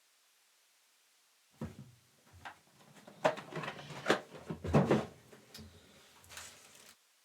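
Packaging of a sealed trading-card hobby box being torn open and handled: irregular crinkling and rustling with sharp clicks. It starts about a second and a half in, peaks a little after the middle and cuts off abruptly near the end.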